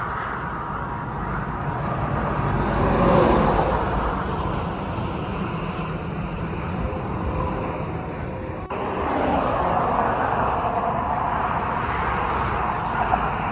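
Road traffic noise from vehicles driving past right alongside on the highway bridge, a loud, steady rush that swells as vehicles go by, about 3 seconds in and again from about 9 seconds in.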